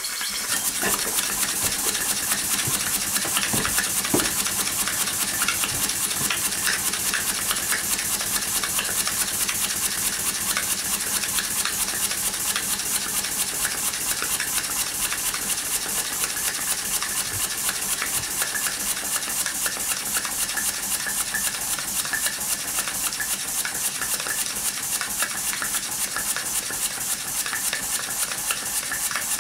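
Homemade single-cylinder model steam engine running fast on live steam at raised pressure: a rapid, even chuffing over a steady hiss.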